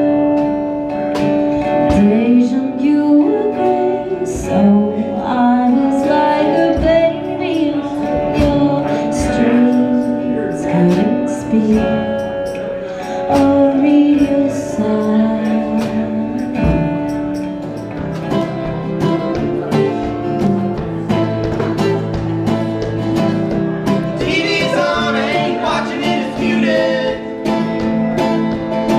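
Live acoustic music: a woman singing while playing an acoustic guitar. Partway through, it changes to another acoustic guitar act.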